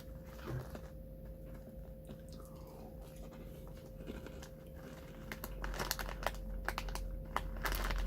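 A crunchy puffed corn snack (Tohato Caramel Corn) being bitten and chewed. The crunches come thicker and louder in the last few seconds.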